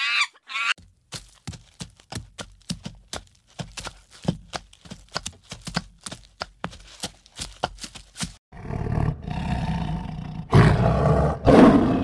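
Brief high wavering calls at the start. Then a quick run of short, sharp sounds, about three a second, for several seconds. The loudest part is a tiger's deep, rough growling from about eight seconds in, with two loud calls near the end.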